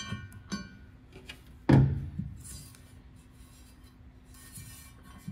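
Metal parts clinking and ringing against a steel military split-rim wheel as a valve stem is fitted into its slot, with a heavier knock a little under two seconds in and light scraping afterwards.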